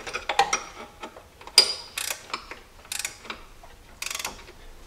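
Ratcheting wrench clicking in short runs while working the idler pulley bolt loose on a Jeep 4.0L engine, with one sharp snap about a second and a half in.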